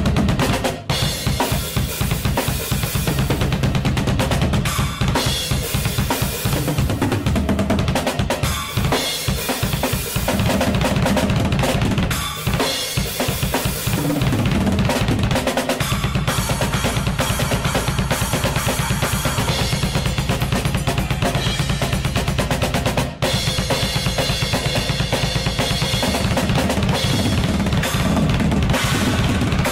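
Drum kit played hard and continuously: bass drum, snare and cymbals in a dense, busy pattern, with a couple of brief breaks.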